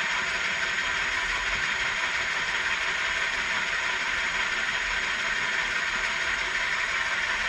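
Milling machine running with its spindle-mounted cutter taking a cut on a steel steady rest: a steady, even whirring hiss with no breaks.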